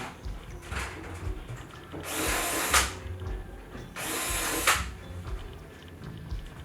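A drill running in two short bursts of a little under a second each, about two seconds apart, with a high hissing whir.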